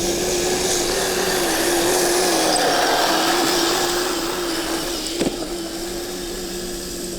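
Kyosho Blizzard SR radio-controlled snowcat's electric motor running with a steady, slightly wavering whine over a broad mechanical hiss; a single short click about five seconds in.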